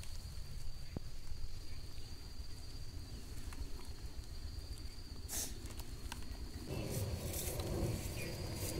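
Outdoor ambience: a steady high insect drone over low rumbling on the microphone, with a few faint clicks and a short scuffle a little after five seconds. From about two seconds before the end, a denser rustle of grass and leaves being moved.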